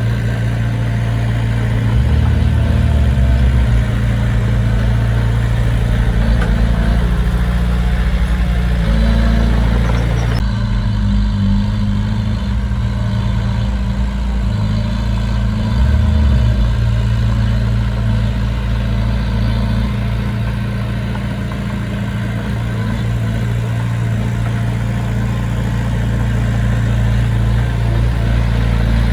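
Engine of heavy earthmoving machinery running steadily, its low note shifting slightly with load. The higher hiss drops abruptly about ten seconds in.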